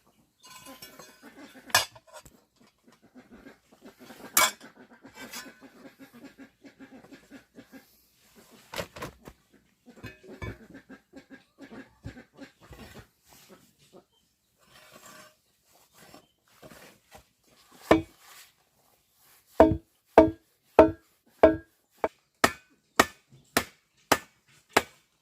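Scattered sharp knocks and clinks, then a steady run of about ten strikes, roughly two a second, each with a short ring.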